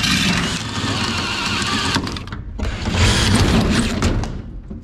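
Cordless drill spinning up and boring through a race car's body panel in two runs, with a short break about two seconds in.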